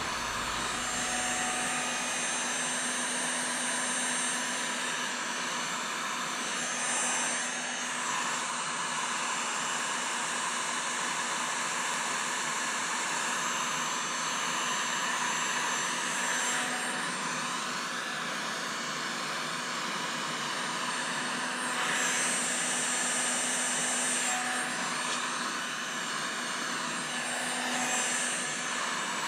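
Electric heat gun running steadily, its fan blowing hot air to shrink heat-shrink tubing over a spliced extension cord.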